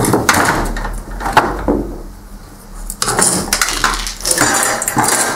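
Steel side plate of a laser printer's gear drive being worked loose and pulled off, clattering and rattling with the plastic gears mounted on it. The clatter eases for about a second two seconds in, then starts again.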